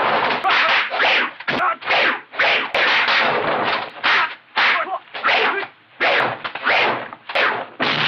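Kung fu film fight sound effects: a rapid run of whooshing swishes from punches and blocks, about two a second, with a few sharp hits among them.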